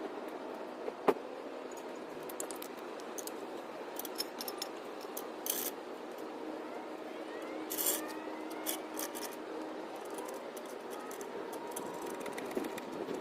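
Scattered clicks, scrapes and rustling of parts and tools being handled, over a steady faint hum.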